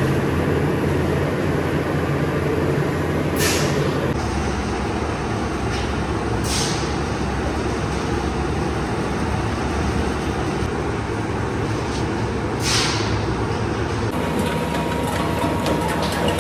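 Battery-factory machinery running with a steady, loud noise, with three short hisses a few seconds apart.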